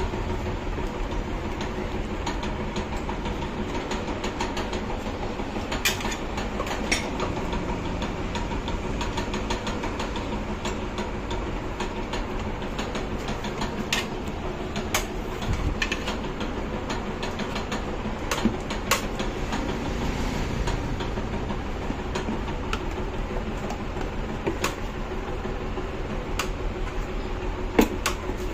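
Steady mechanical running noise with a constant hum, broken by scattered sharp clicks and knocks.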